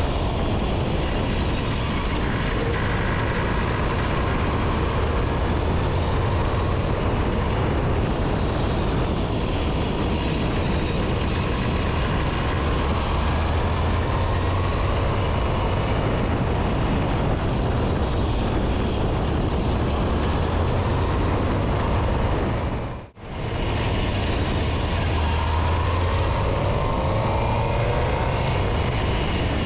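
Riding sound of a 2005 Suzuki GSX-R750 on the road: steady rush of wind over the handlebar-mounted microphone with the inline-four engine running underneath, its note rising and falling as the bike slows and speeds up. The sound drops out briefly about two-thirds of the way through.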